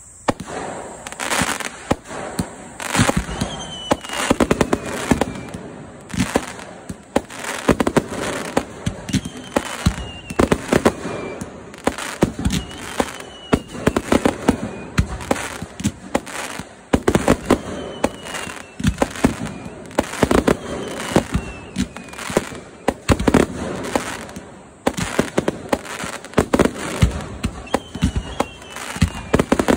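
Fireworks finale barrage: rapid, dense bangs and crackling of shells bursting close overhead, with a short high falling whistle heard several times among them.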